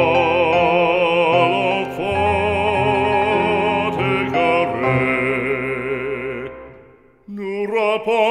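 Background music: a slow French hymn, its long notes wavering in pitch over a steady low accompaniment. It fades almost away about seven seconds in, then a new phrase begins.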